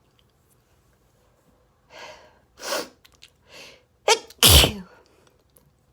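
A person sneezing in an allergy sneezing fit: a few short breathy build-up sounds from about two seconds in, then one loud, explosive sneeze about four and a half seconds in.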